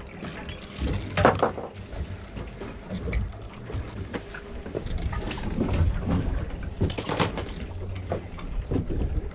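Steady low rumble of a boat drifting offshore, with a few sharp knocks and rustles as a small snapper is handled on the fiberglass deck.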